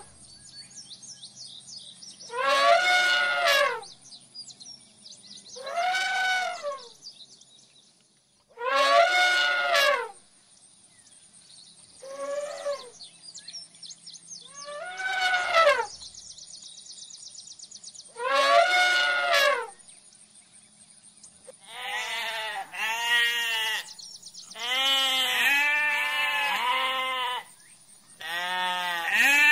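Six separate high, wavering calls about three seconds apart over a steady high hiss, then lambs bleating several times in quick succession near the end.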